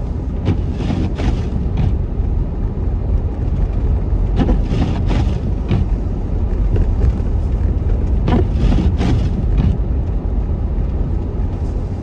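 Car driving on a snow-covered road, heard from inside the cabin: a steady low rumble of engine and tyres, with three clusters of brief hissing swishes.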